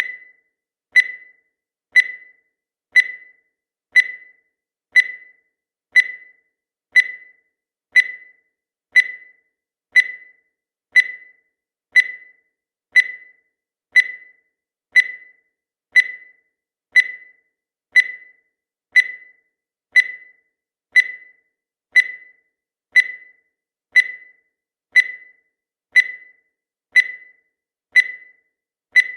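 Countdown timer sound effect: a short, high-pitched beep once every second, each dying away quickly, in an even, unbroken rhythm.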